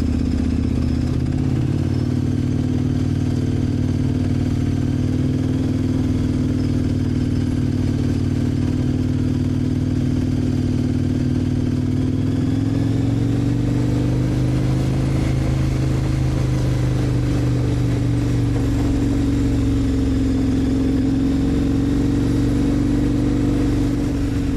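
KTM motorcycle engine running steadily while riding along at road speed, its note shifting a little about halfway through.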